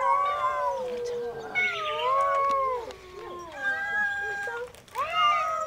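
Cats meowing: about four long, drawn-out meows one after another, with short gaps between them.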